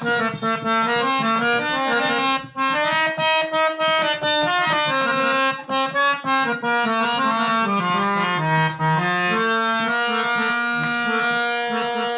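Instrumental interlude of a Hindi devotional bhajan. A reedy melody instrument plays held notes that step up and down, with no singing, and the line dips lowest about eight seconds in.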